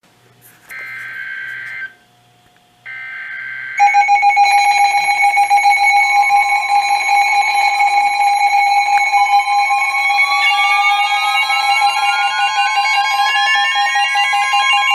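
Emergency Alert System broadcast: two short bursts of the warbling SAME data header, a second apart, then the loud, steady two-tone EAS attention signal from about four seconds in. A rising whistle climbs through it over the last six seconds.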